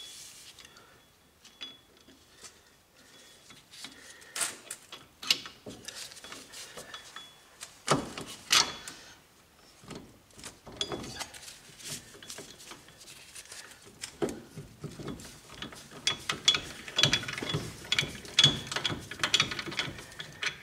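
Hand ratchet wrench with an extension clicking in short, uneven runs as a rear wheel-bearing mounting bolt is run in, with the odd clink of metal tools.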